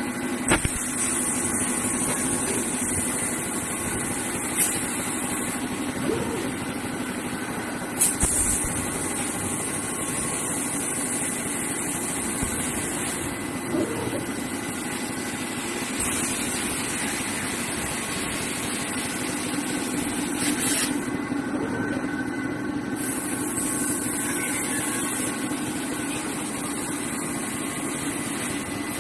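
CNC fiber laser cutting machine running: a steady machine hum with a high hiss that switches on and off in stretches of a few seconds, and a few sharp clicks.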